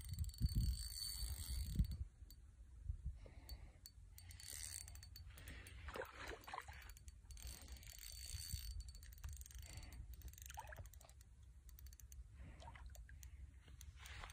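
Spinning fishing reel being cranked, giving faint fine clicking, over a low steady rumble. The first two seconds are louder than the rest.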